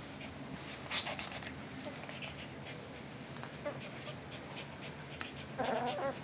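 Two Cavalier King Charles Spaniels, a puppy and an adult, play-fighting at close range: soft snuffling, mouthing clicks and rustling, with a short dog whine near the end.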